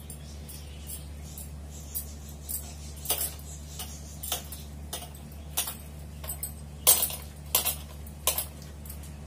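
Light, irregular clinks and taps, about fifteen of them, while dough is rolled by hand into a rope on a stone countertop, the loudest near the end. A steady low hum runs underneath.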